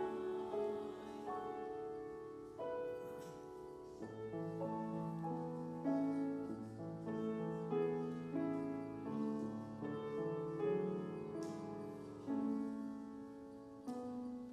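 Grand piano playing a passage of struck chords, each one fading before the next.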